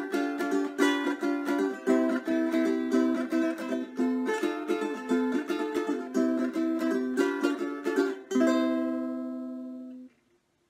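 Outro music: a quick tune of plucked strings, ending on a final chord that rings for about a second and a half and then cuts off suddenly.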